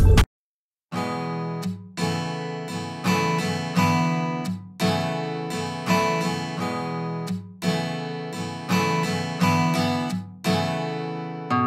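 Background music: an acoustic guitar strumming chords in a steady rhythm, each chord struck and ringing away, starting after a brief silence about a second in.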